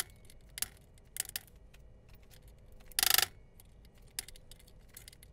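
Hammer striking a steel rod used as a punch to drive the lower steering-stem bearing race out of a dirt bike's steering head: sharp metallic taps, spaced out, with a longer strike about three seconds in.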